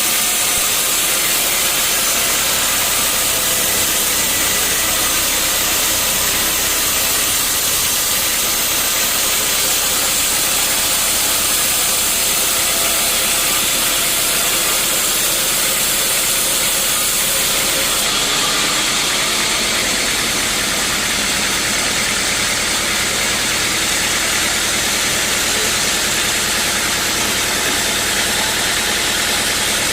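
Sawmill machinery running steadily, a loud engine-like drone with strong hiss from the saw. Its tone shifts about eighteen seconds in.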